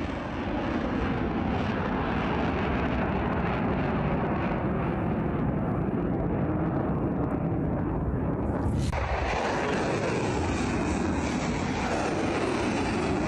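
Steady, dense rumble of a missile's rocket motor as it climbs after launch. About nine seconds in the sound changes abruptly and turns brighter.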